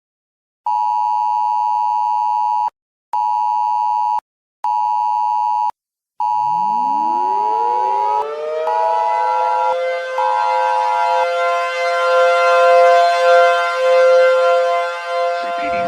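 An electronic alert tone beeps in a long-short-short pattern, played twice. From about six seconds in, an outdoor warning siren winds up from a low growl to a steady two-tone wail that keeps sounding after the beeps stop.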